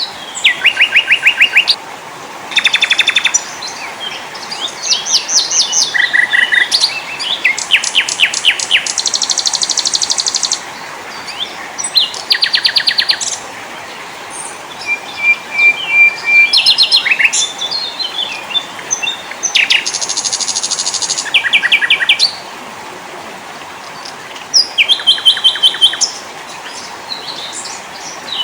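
Small songbirds singing in turn: short, rapid trills and chattering phrases, high-pitched, following one another with brief pauses, over a steady faint hiss.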